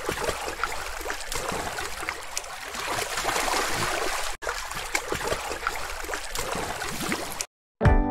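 Crayon scribbling on paper: a steady scratchy rasp full of small ticks, cutting out for an instant about four seconds in and stopping shortly before the end.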